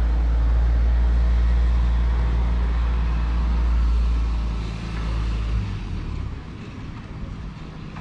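A motor vehicle's engine running close by: a low, steady rumble that fades away about five to six seconds in, leaving quieter street noise.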